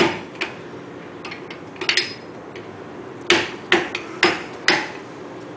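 Hammer tapping a beveled driver wedged under the grease cap of a 1999 VW Cabrio's rear drum-brake hub, working the cap loose. A few scattered light taps come first, then four sharper strikes about half a second apart.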